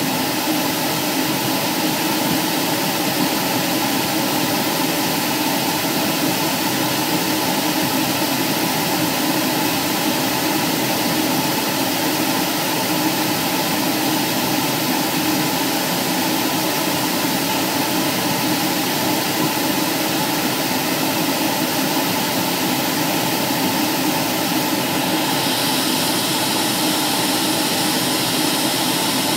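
Aircraft engine noise inside the cabin in flight: a steady, loud drone under a constant rush of hiss. The hiss grows brighter about 25 seconds in.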